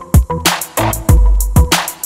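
Background music with a heavy drum beat: deep kick drum and bass, a snare hit about every second and a bit, and quick high ticks over the top.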